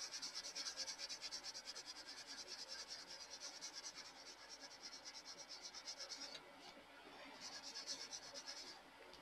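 Colored pencil shading back and forth on paper in quick, even scratching strokes, about six a second. The strokes pause for about a second past the middle, resume briefly, then stop shortly before the end.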